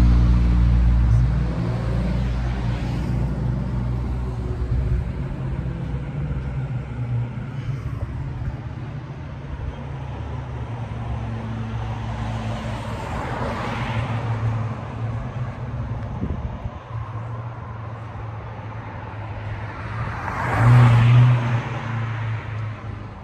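Car engines running with a steady low rumble, loudest at the start, with two louder surges: one about halfway through and a stronger one near the end.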